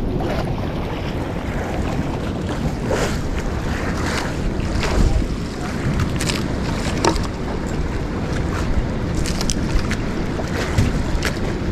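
Wind buffeting the microphone over sea water washing against a small outrigger boat's hull, with a few short sharp sounds scattered through.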